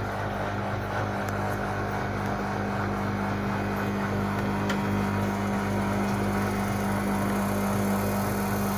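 LG WD-80155NUP front-loading washing machine running, a steady even hum with a strong low tone and no change in pace.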